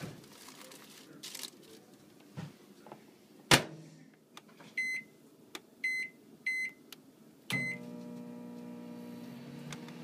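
Microwave oven: its door shuts with a sharp clack a few seconds in, then four short keypad beeps as the cooking time is entered and started, after which the oven runs with a steady hum. Faint paper rustling comes first, as potato slices are laid on paper inside.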